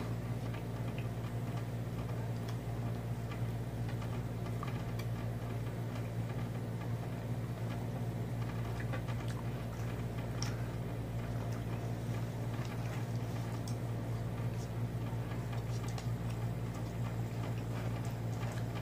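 A steady low hum throughout, under faint, scattered clicks and taps from someone eating roast chicken with the hands off a plate.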